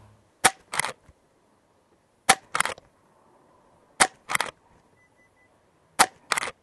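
Umarex Zelos .22 PCP air rifle fired four times, about two seconds apart, in a group. Each sharp shot is followed about a third of a second later by a second, longer clack.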